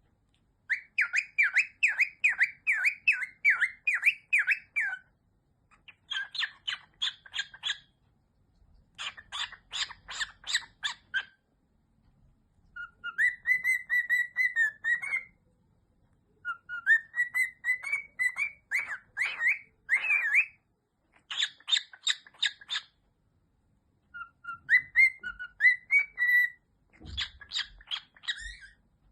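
Pet bird whistling a learned tune, most likely the march the title refers to, in about eight separate phrases of quick, repeated high notes with short pauses between them.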